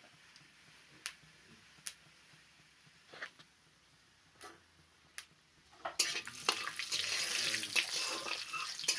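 Cumin seeds frying in hot oil in a steel kadai: a few scattered sharp pops, then about six seconds in a sudden loud, dense crackling sizzle as a spatula stirs the seeds around the pan.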